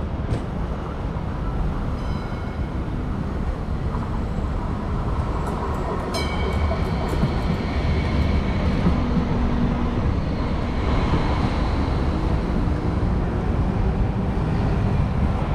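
Hong Kong MTR Light Rail car running past on the tracks, louder from about six seconds in, when a high whine joins the rumble of wheels on rails.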